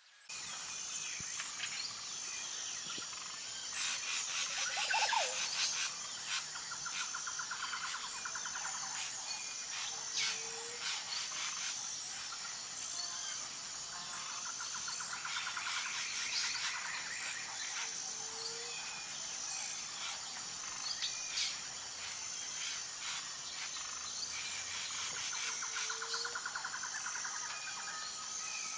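Nature chorus of frogs and insects: a steady high-pitched insect drone, repeated pulsed trills, and a short low rising call about every eight seconds, with scattered chirps.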